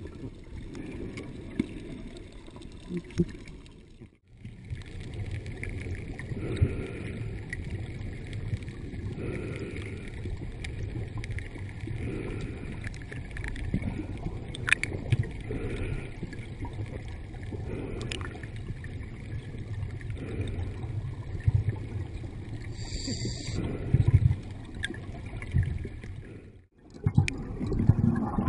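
Water of a deep karst spring rushing and gurgling, a steady low churning noise with scattered small clicks, broken by two short gaps.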